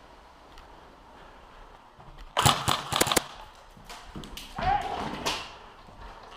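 A quick run of sharp clacks and knocks, most of them packed into under a second about two and a half seconds in, then a short voice with a few more knocks.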